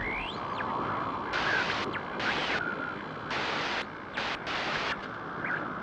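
Static-like hiss with several short bursts of brighter hiss and a few faint chirping glides, part of the GoPro logo intro sound.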